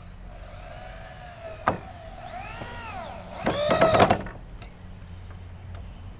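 Power drill whining through a few trigger runs as it works in wood, its pitch climbing and dropping, the longest and loudest run near the end. A single sharp knock comes about a second and a half in.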